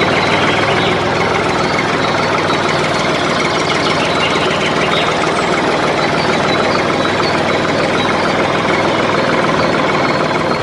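Small electric motor of a model machine running steadily without pause.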